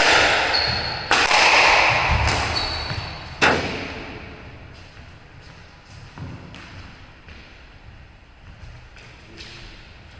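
Squash rally: sharp cracks of racquet strokes and the ball striking the court walls, each ringing on in the hollow court, with short squeaks of sneakers on the wooden floor. After about three and a half seconds the rally stops and only a few faint knocks follow.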